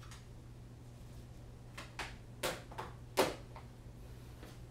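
A few light clicks and knocks, the loudest a little past the middle, from small objects being handled on a workbench, over a steady low hum.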